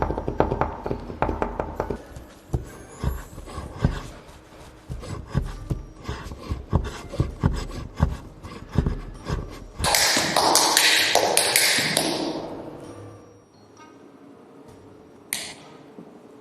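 Irregular tapping and knocking on hard objects for about ten seconds, then a loud hissing, rustling noise for about two seconds, and two short hisses near the end.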